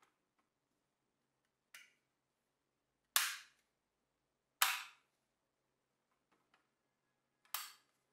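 Doors and bonnet of a 1:24 scale Mercedes-Benz G63 AMG model car clicking shut by hand: a faint click about two seconds in, then three sharper clicks spaced a second and a half to three seconds apart.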